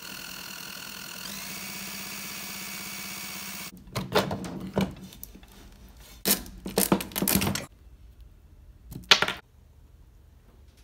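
A cordless drill spinning the shaft of a permanent-magnet washing machine motor, driving it as a generator, with a steady whine that rises in pitch about a second in and cuts off abruptly near the four-second mark. Then come several clunks and knocks as the metal motor parts are handled.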